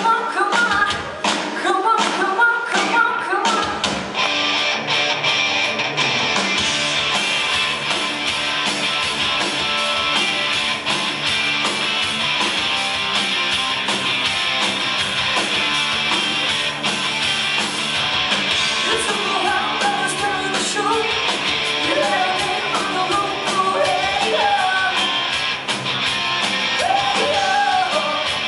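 Live hard rock band playing loud. For the first few seconds a female voice sings over sharp rhythmic hits; then, about four seconds in, the full band comes in with distorted electric guitars, bass and drums. The singing returns about two-thirds of the way through.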